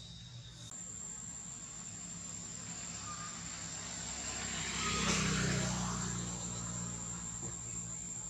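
A motor vehicle passing: its engine hum and road noise swell to a peak about five seconds in, then fade.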